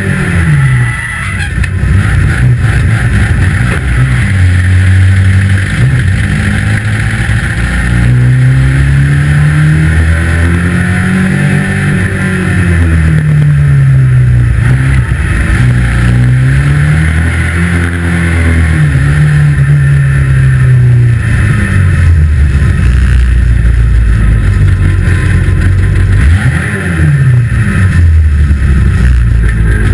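A 2-litre saloon stockcar engine at racing speed, heard from inside the cockpit: the revs climb and drop repeatedly, every few seconds, as the car accelerates and backs off around the oval, over steady road and wind noise.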